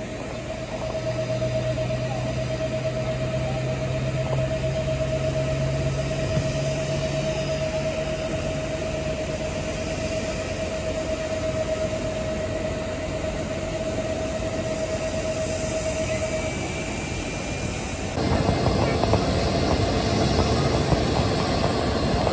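Jet airliner engines idling, a steady high whine over a low rumble. About 18 s in this gives way to louder jet engine noise as the Boeing 737 taxis.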